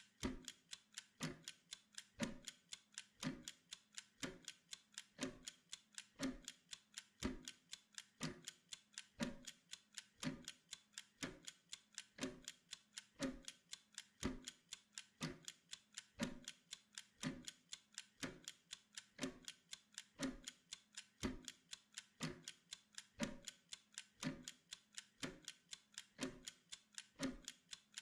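Steady clock-like ticking of a timer, several ticks a second, with a stronger tick about once a second.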